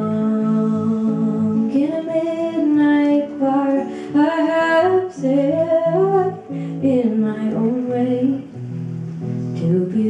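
A woman singing a slow folk song over her own acoustic guitar, holding long notes. The voice drops away near the end, leaving the guitar playing alone.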